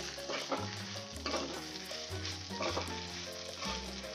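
A steel ladle stirs and scrapes dry-roasted red chillies, coriander seeds and lentils around a hot aluminium kadai, with a sizzle from the little oil in the pan. The stove has just been turned off after roasting.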